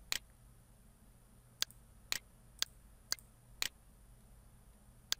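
Computer mouse clicking: about seven short, sharp clicks, most of them about half a second apart, while a wire is routed in a schematic editor.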